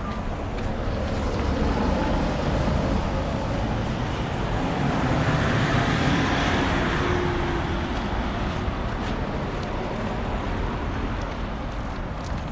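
Road traffic noise, with one vehicle passing that swells to its loudest around the middle and then fades away.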